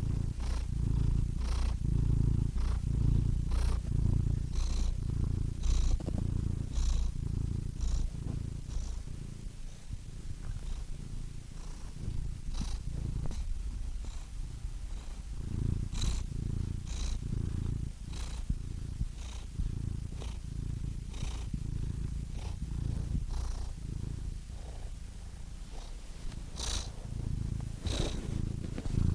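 Domestic cat purring close up, a continuous low rumble that swells and fades in a steady rhythm with its breathing.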